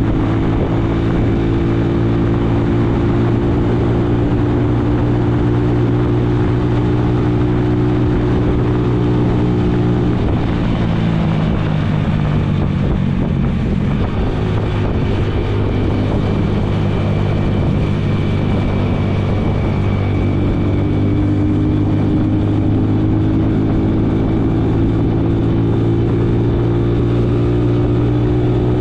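Motorcycle engine running steadily while riding at speed, with a rush of wind noise. About ten seconds in, the engine note drops and fades for a few seconds, then returns and climbs slowly as the bike speeds up again.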